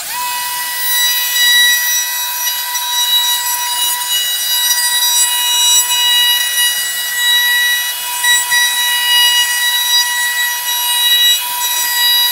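Router mounted in a router table running with a steady high-pitched whine while its chamfering bit cuts the edges of a hardwood cutting board fed past it.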